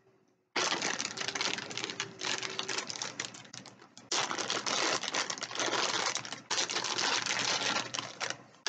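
Packaging crinkling and rustling loudly as it is torn open by hand, in three long stretches with brief breaks.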